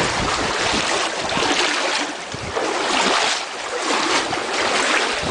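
Floodwater sloshing and swirling around someone wading through it, in uneven surges.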